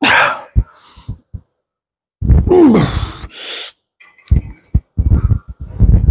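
A man breathing hard and grunting with effort through a set of seated cable rows, with one voiced groan falling in pitch about two and a half seconds in. A few short knocks sound in between.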